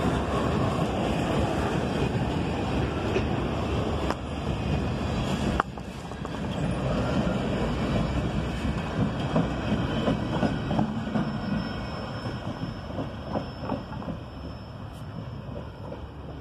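Freight train rolling past, its steel wheels clattering over the rail joints. The sound drops suddenly about five and a half seconds in, then slowly fades away.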